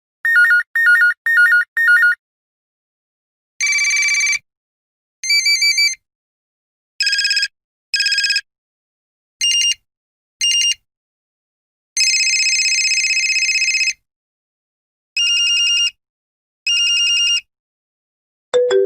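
A series of different telephone ring effects, one after another with silent gaps. First a quick run of four short trilling rings, then several rings in pairs of short bursts, and one long ring of about two seconds near the middle.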